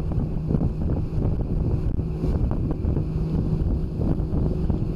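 Wind buffeting the microphone over rushing, splashing water as the boats move through the chop, with a faint steady low hum underneath.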